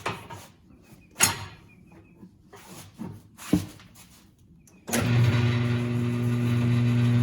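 Two sharp metal clanks from a manual tire changer as a tire is worked off the wheel. About five seconds in, a steady machine hum starts suddenly and keeps running.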